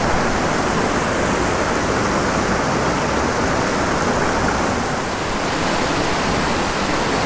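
A small mountain stream rushing over rocks and riffles: a steady rush of water.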